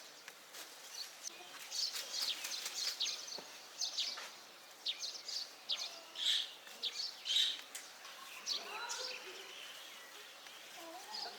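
Small birds chirping: many short, high, quick chirps, with a lower call about three quarters of the way through.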